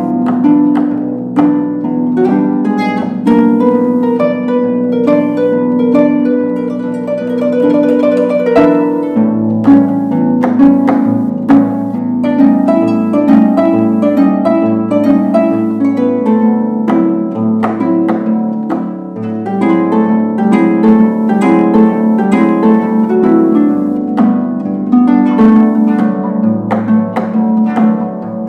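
Solo concert harp playing: a continuous stream of plucked notes and ringing chords over a low bass line.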